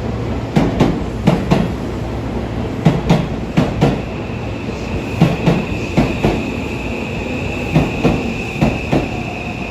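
Electric train rolling past, its wheels knocking over the rail joints in quick pairs (clickety-clack), over a steady rumble. A steady high whine runs above it, fading for a few seconds in the middle.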